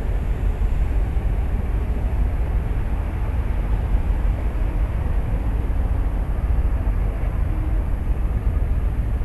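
Steady low rumble of a ship's engine under way, heard from on board, with a noisy hiss over it.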